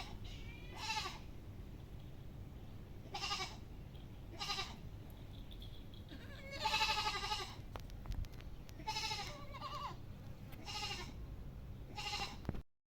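A goat bleating repeatedly: about seven wavering bleats a second or two apart, the longest and loudest about seven seconds in.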